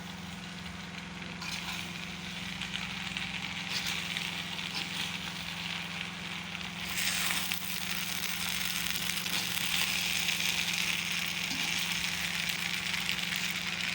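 Fried rice sizzling in a hot pan, the hiss growing louder about halfway through, over a steady low hum.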